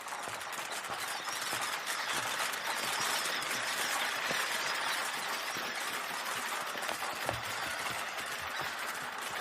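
A crowd of squirrels handling, tapping and cracking nuts: a dense, steady patter of many small clicks, taps and shell cracks.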